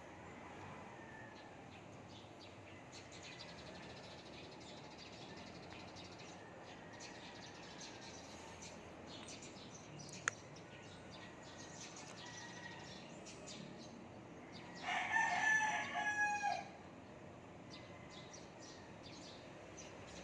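A rooster crowing once, a call of about two seconds starting roughly three-quarters of the way through, over faint scattered bird chirps. A single sharp click about ten seconds in.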